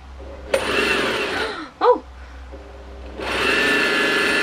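Brother PQ1500SL sewing machine winding a bobbin at high speed: the motor runs for about a second and winds down, then starts again about three seconds in and runs steadily. Very fast.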